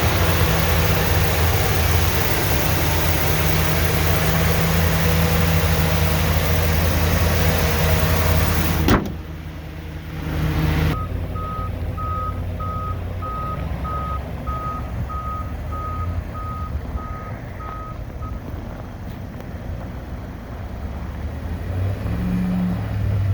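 2011 Ford F350 Super Duty pickup's engine running with a steady low drone. About nine seconds in the sound cuts abruptly and the engine is quieter. A couple of seconds later an electronic beep repeats about twice a second for around seven seconds, then stops.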